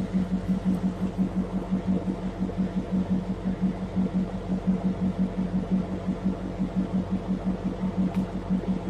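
An engine running steadily, its low hum pulsing evenly about three times a second.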